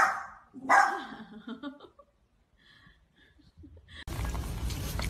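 A small white fluffy dog barks twice, sharply, about three quarters of a second apart. The barking stops and a steady background noise comes in about four seconds in.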